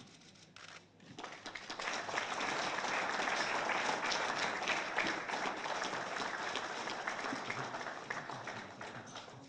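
Audience applauding: the clapping rises about a second in, stays full through the middle, then dies away near the end.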